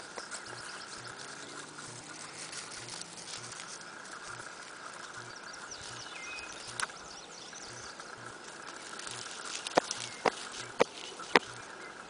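An Afghan hound running through dry crop stubble: quiet open-field background with a faint steady high tone, then a few sharp snaps near the end as the dog's paws crunch the dry stalks.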